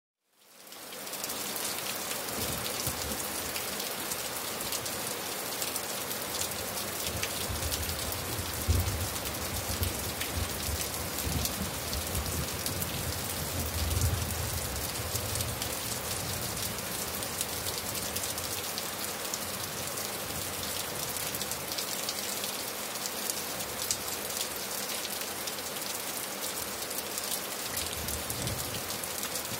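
Steady rain falling and pattering on surfaces, fading in over the first second, with a couple of brief low rumbles about nine and fourteen seconds in.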